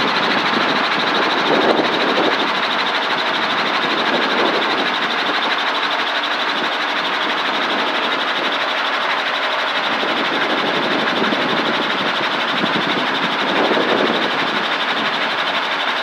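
Helicopter engine and rotor running steadily, a continuous even rushing noise with no change in pitch or level.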